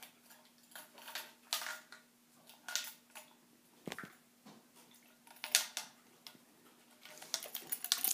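Stainless-steel travel mug being handled and turned over: a string of short scrapes, knocks and clinks, about one a second, thickening into quicker rattling near the end, over a faint steady hum.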